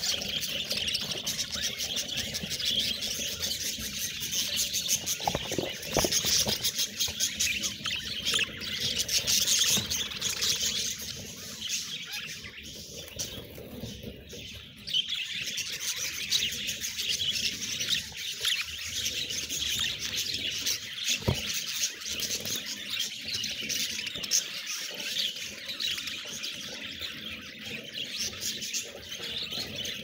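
A flock of budgerigars chirping and warbling together in a continuous high chatter, which thins out briefly about halfway through.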